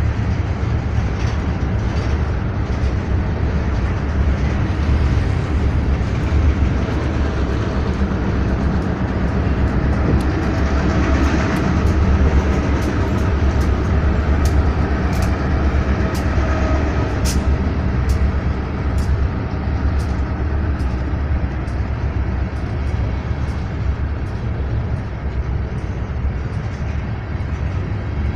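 Freight train rolling past: a steady, loud low rumble of wheels on rail, with many sharp metallic clicks and clacks at irregular spacing, thickest in the middle of the passage.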